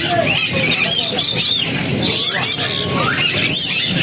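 Many caged birds calling at once, a dense, steady chorus of short rising-and-falling chirps overlapping one another.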